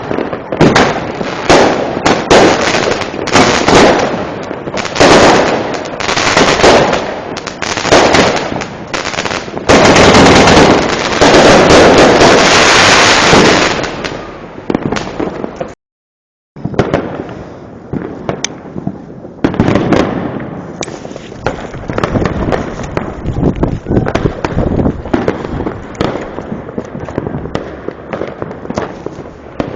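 Fireworks and firecrackers going off in a dense run of bangs and crackles. About ten seconds in they merge into an almost unbroken, very loud barrage. After a brief dropout about halfway through, quieter bangs keep going.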